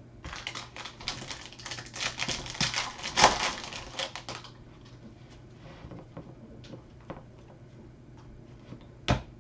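Dense crinkling and crackling of a 2019 Panini Prizm trading-card pack being opened and handled, lasting about four seconds. A few faint taps and a short click near the end follow.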